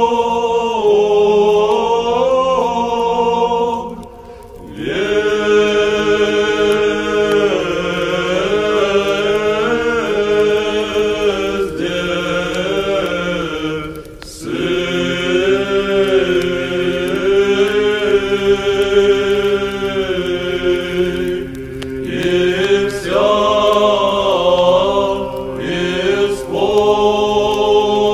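Choir singing a slow Orthodox church chant in long held phrases over a sustained low note; the singing drops away briefly about 4 and 14 seconds in.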